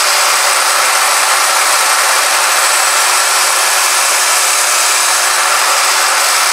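Small Craftsman benchtop drill press running at a steady speed with a constant motor whine, its bit drilling through a hard plastic engine motor mount.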